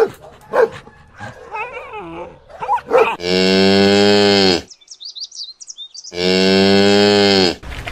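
Cow mooing twice, two long, steady moos of about a second and a half each, the first starting about three seconds in. Before them come short yapping animal calls, and between the two moos there is faint high chirping.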